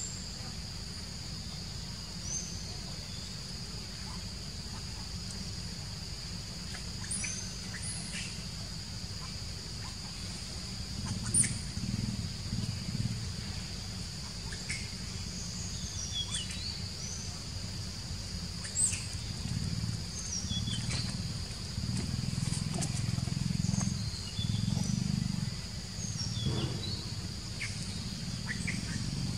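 Outdoor ambience: a steady high-pitched insect drone with scattered short chirping calls, most likely birds, over a low rumble that grows louder about a third of the way in.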